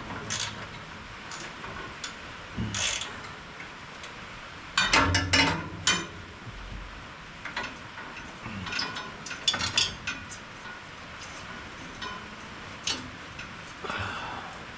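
Ratchet wrench clicking in short, irregular runs while bolts are worked loose on a round baler, with a louder metallic clatter about five seconds in.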